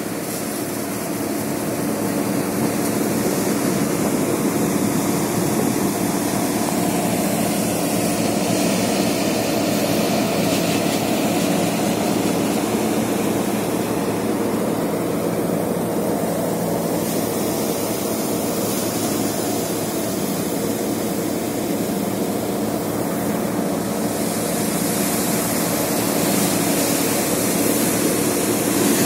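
Paddy threshing machine running steadily: a continuous mechanical drone holding several steady hum tones.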